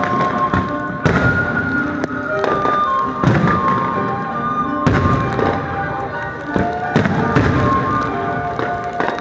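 Aerial firework shells bursting with sharp bangs, roughly one every second or so, over music playing through the display's loudspeakers.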